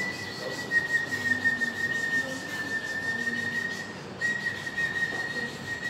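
A steady high whistle-like tone held on one pitch, with a brief break about four seconds in.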